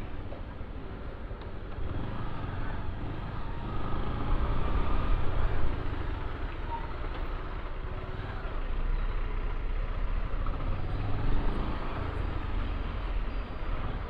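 Motorcycle riding through traffic: a steady rush of wind and road noise on the microphone, with the bike's engine running underneath. It swells and eases slightly as the bike edges past a large lorry.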